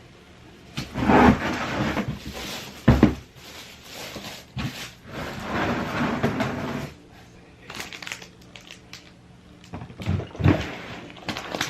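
Handling noises: bursts of rustling and scraping with a few sharp knocks, one about three seconds in and two more near the end.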